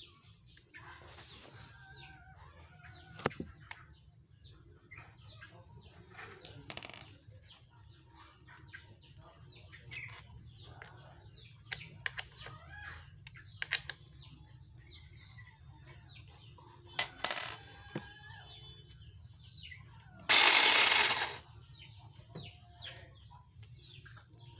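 Battery-powered mini chainsaw handled and briefly run. Scattered light clicks and metallic clinks come from working on the saw, against a background of birds chirping. About twenty seconds in, the motor and its freshly loosened chain run for about a second, the loudest sound here.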